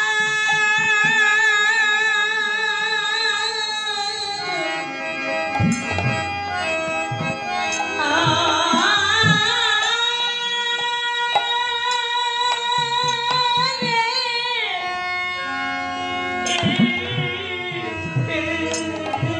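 Bengali devotional nam kirtan: a woman singing long, wavering held notes over a harmonium, with bamboo flute and hand-drum strokes falling between the sung phrases.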